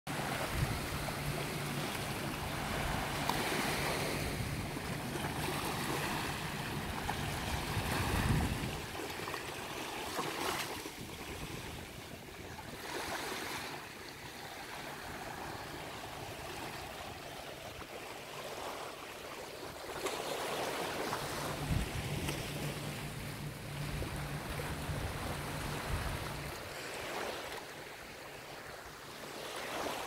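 Small sea waves washing and lapping onto a sandy, rocky shore, swelling and easing every few seconds. A low steady hum sits under it for the first eight seconds or so and returns in the second half.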